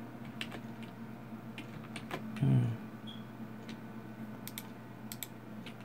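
Scattered sharp clicks of a computer mouse and keyboard, a dozen or so at uneven intervals, over a steady low hum. About two and a half seconds in, a short low voiced murmur is the loudest sound.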